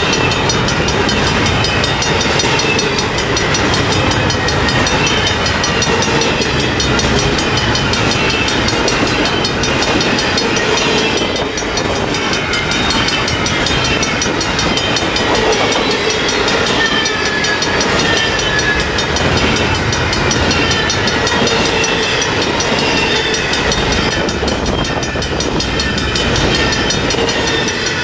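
Loaded double-stack intermodal well cars of a long freight train rolling past: a steady, loud rumble and clatter of steel wheels on the rail, with faint high squeals sliding down in pitch now and then.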